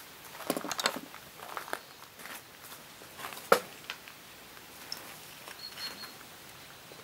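Light clicks and rustling as dried herbs are shaken from a container onto chopped tomatoes in a stainless steel bowl, with one sharper click about three and a half seconds in.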